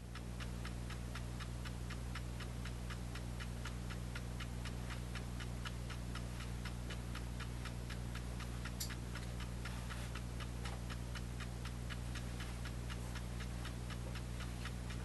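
The clock movement of a SPICA transistor radio alarm clock ticking: a quick, even run of light ticks, over a steady low hum.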